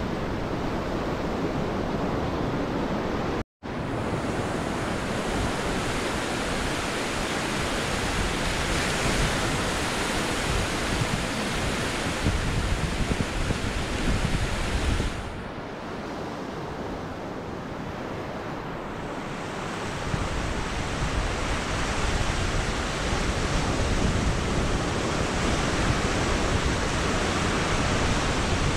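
Ocean surf breaking and washing up a sandy beach, a steady rush of water with some wind buffeting the microphone. The sound cuts out for an instant a few seconds in and eases for a few seconds around the middle.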